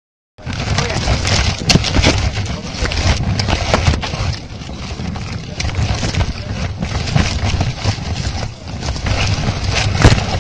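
Spruce branches rustling and scraping against the stranded quadcopter's on-board camera as the tree is shaken, with many sharp clicks and knocks over a low rumble of buffeting on the camera's microphone. It starts suddenly about half a second in.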